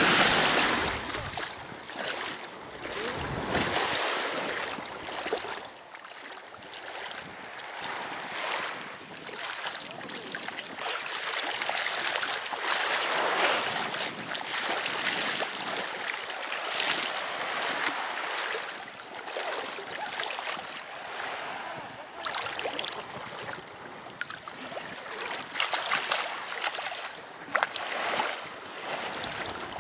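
Sea waves washing on the shore, rising and falling every few seconds, with wind buffeting the microphone.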